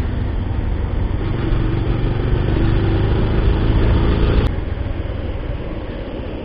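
Bajaj Pulsar 150 motorcycle's single-cylinder engine running on the move, under steady wind and road rumble. The sound drops suddenly to a quieter level about four and a half seconds in.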